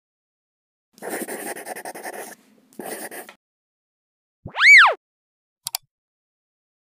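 Intro-animation sound effects: two bursts of rough, rattly noise, then a loud pitched swoop that rises and falls, then a short mouse-click sound as the Subscribe button is pressed.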